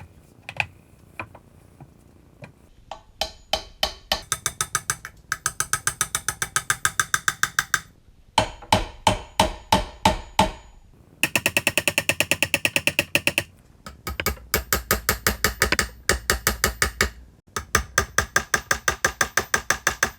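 Hammer tapping small steel pins into a cast iron stove door. The metallic taps come in rapid runs, several a second, with short pauses between runs, and each tap rings briefly.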